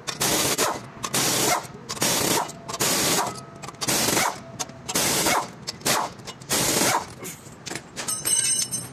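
Pneumatic impact wrench hammering the flywheel bolts loose from the crankshaft in about eight short bursts, roughly one a second. Near the end, a few light clicks and a brief metallic ringing as the plate is handled.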